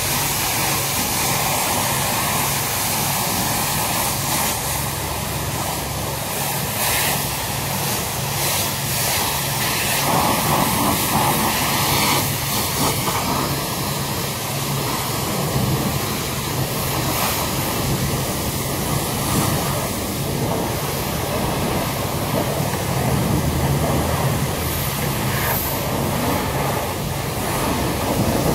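Pressure washer spraying a car: a steady hiss of the water jet on the bodywork over a low, even hum.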